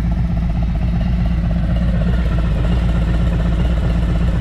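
Harley-Davidson Milwaukee-Eight 114 V-twin running at idle through TAB Performance Zombie slip-on mufflers: a steady, loud, deep exhaust rumble.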